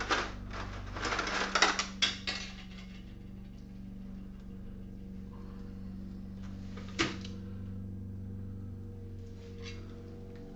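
Pieces of copper wire clicking and clattering as they are handled and put into a plastic bucket of vinegar and salt solution: a quick run of clicks in the first two or three seconds, then one sharp click about seven seconds in, over a steady low hum.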